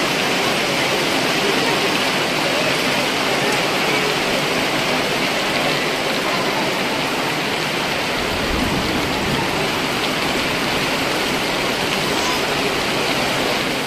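Heavy rain falling steadily, a dense, even hiss of drops on grass and paths.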